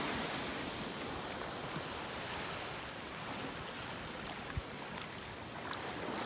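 Small waves washing onto a sandy beach, a steady, soft rush of surf, with a brief low thump about four and a half seconds in.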